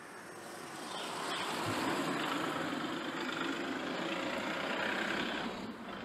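A car driving past on the street: tyre and engine noise swells over the first couple of seconds, holds, and fades away near the end.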